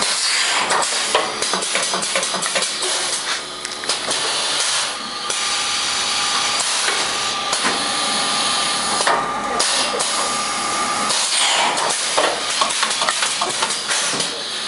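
Pneumatic brick bag packing machine running: a steady hiss of compressed air with repeated sharp clacks and knocks from its moving parts.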